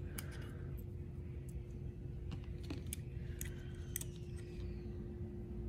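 Scattered light clicks and taps of small metal airsoft engine parts being handled: the spring and cylinders of a Fusion Engine, over a faint steady hum.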